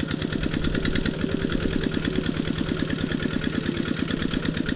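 Kubota walking tractor's single-cylinder diesel engine running steadily under load as it tills the field, a rapid even chugging of about a dozen beats a second.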